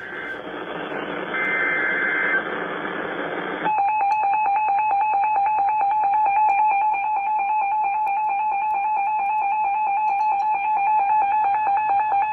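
NOAA Weather Radio emergency alert played through an Amazon Echo speaker. It opens with a few seconds of harsh, buzzing SAME data bursts. About three and a half seconds in, these give way to the steady, high 1050 Hz warning alarm tone, which marks a warning about to be broadcast.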